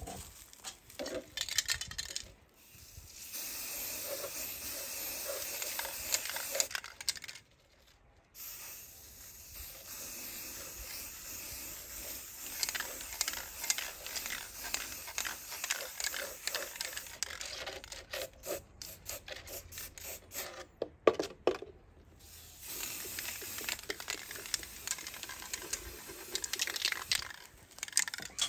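Aerosol spray paint can hissing in three long bursts as paint is sprayed onto a plastic bottle, the first beginning about three seconds in. Between the second and third bursts there is a cluster of sharp clicks.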